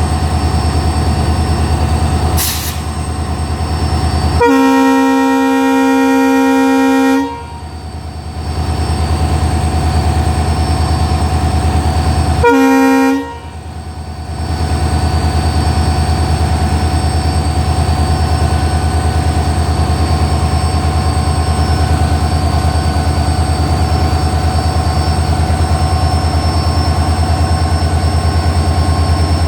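Diesel locomotive horn sounding one long blast of about three seconds and, some five seconds later, one short blast: the horn signal that the alarm chain has been pulled. A steady low diesel engine drone runs underneath, with a brief sharp click a couple of seconds in.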